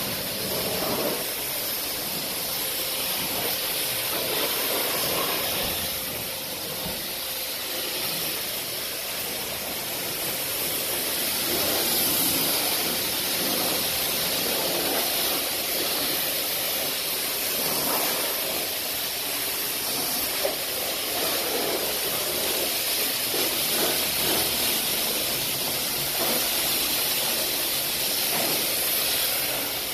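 High-pressure spray wand at a self-service car wash hissing steadily as its jet of water spatters on a car's body and the wet concrete floor.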